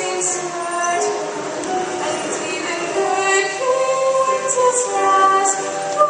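A stage choir singing a musical-theatre number in long held notes, several voices together, heard from the audience seats of a hall.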